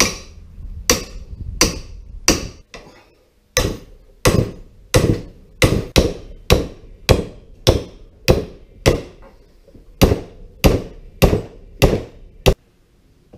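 Hammer striking the handle of an adjustable wrench, about nineteen sharp metal blows at a steady pace with two short pauses, to break loose the threaded head of a John Deere hydraulic lift cylinder.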